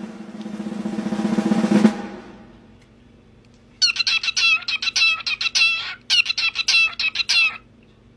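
A swelling musical sting that builds for about two seconds and fades, then two runs of rapid, high, bird-like chirping calls, each about two seconds long.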